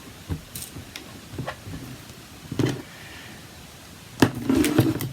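Light clicks and taps of stamping tools being handled on a craft desk, with a sharper knock and a short burst of handling noise about four seconds in.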